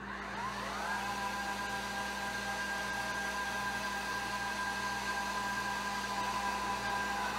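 Meade 10-inch LX200GPS telescope's drive motors slewing: a whine that rises in pitch over about the first second as the motors speed up, then holds steady at full slew speed.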